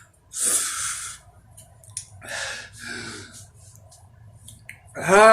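A man breathing hard and harshly through his mouth against the burn of a raw habanero, with three breathy huffs, then a drawn-out groan that rises and falls near the end.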